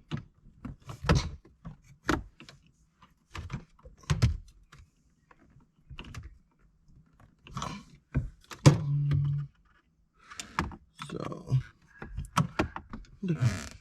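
Scattered clicks, taps and knocks of hand tools and fingers working on the plastic shift-lever bracket base, prying at its locking tabs to release them.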